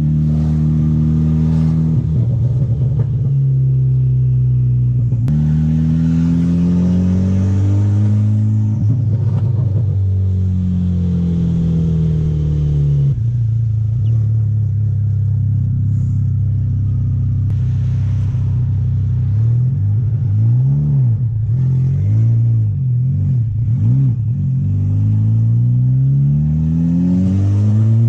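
Turbocharged 2.0-litre four-cylinder of a big-turbo MK6 Golf R being driven hard, its revs climbing and dropping several times, with a run of quick short rev swings about two-thirds of the way through. The engine is pulling freely after replacement of the cam adjuster, N205 cam solenoid, timing chain and tensioner.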